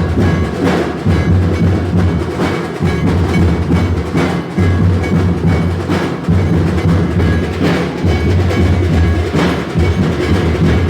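Loud procession drumming: deep drum beats, with a sharp crash-like hit recurring about every two seconds.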